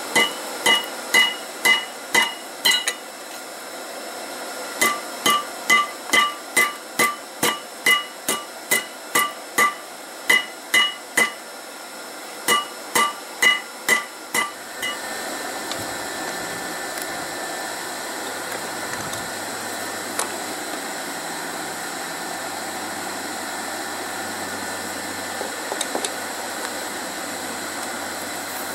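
Hand hammer forging red-hot rebar on a railroad-rail anvil, about two blows a second in three runs, each blow ringing with a clear metallic tone. After about 15 seconds the hammering stops and a steady low hum with a rushing noise goes on.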